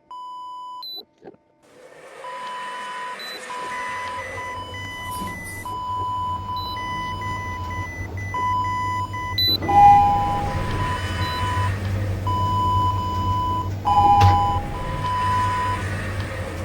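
A short electronic beep, then a steady low rumble with a string of same-pitched electronic beeps of uneven length over it.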